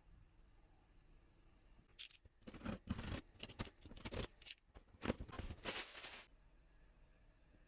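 A quick run of short rustling, scraping handling sounds, starting about two seconds in and stopping after some four seconds.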